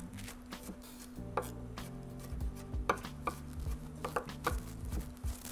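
Chef's knife chopping blueberries on a wooden cutting board: irregular, sharp knife strikes on the board, a few a second.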